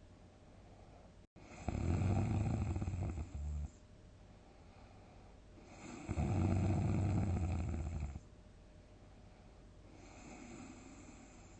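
A sleeping person snoring loudly: two long snores of about two seconds each, a few seconds apart, then a fainter one near the end, with quiet breathing between them.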